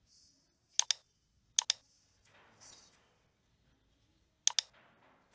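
Computer mouse button clicking: three pairs of sharp clicks, each pair a tenth of a second apart, spread over the few seconds, with a faint soft rustle between the second and third pair.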